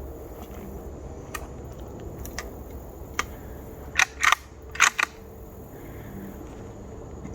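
A few faint clicks, then four sharp clacks in two close pairs about four to five seconds in, over a steady low background noise.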